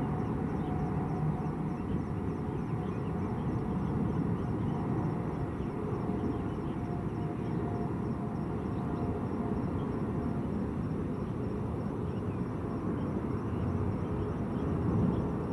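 Boeing 777 jet engines at takeoff power, heard from far off as a steady, even rumble while the airliner lifts off and climbs.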